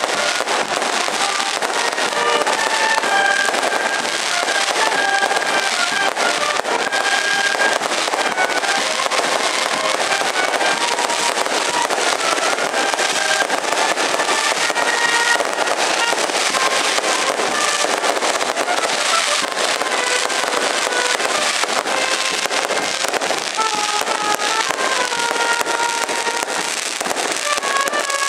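A street band of clarinets, saxophones and brass plays a melody over a dense, continuous crackle of firecrackers.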